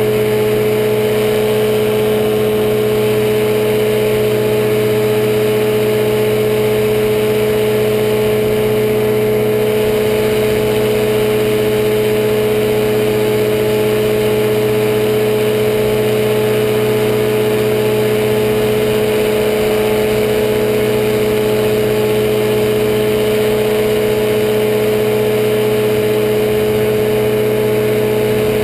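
Powered parachute's engine and propeller running steadily in flight: a loud, unchanging drone.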